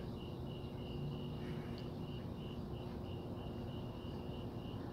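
A cricket chirping steadily, about three short, high chirps a second, over low, even outdoor background noise.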